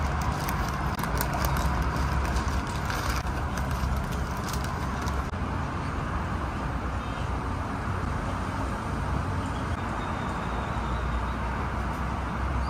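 Brown paper wrapping crinkling and crackling as a pastry is unwrapped, busiest in the first few seconds, over a steady low outdoor rumble like nearby traffic.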